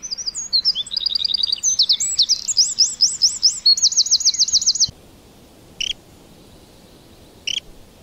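A wren singing a loud, rapid song of high trills and runs of repeated notes for about five seconds, followed by two short, sharp chirps.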